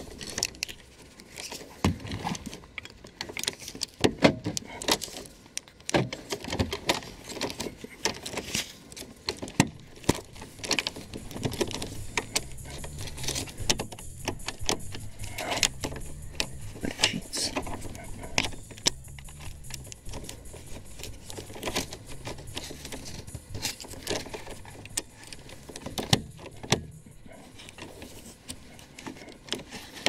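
Key and ignition lock cylinder of a VW Golf 5 clicking and rattling in irregular short knocks as the cylinder is worked out of and back into its housing.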